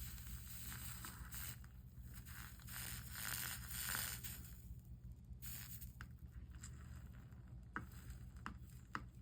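Soldering on a stained-glass chime: an uneven hissing, scraping noise for about five seconds, then a few light clicks near the end, over a steady low hum.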